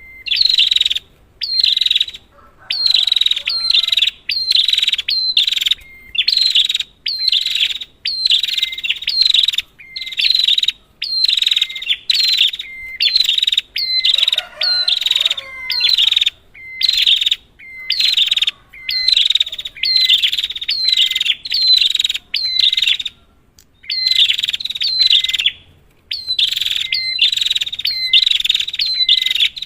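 Red-headed prenjak (prinia) singing loudly in rapid, high chattering phrases, each about a second long with short gaps between. It is a lure recording played to prompt a silent prenjak to sing.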